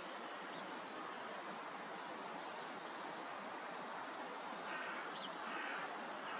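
Steady outdoor background noise, with a few faint, high bird chirps starting about three-quarters of the way through.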